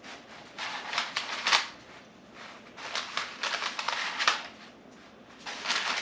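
Parchment paper rustling and crinkling under hands pressing and smoothing a floured dough round, in three spells of a second or so with short pauses between.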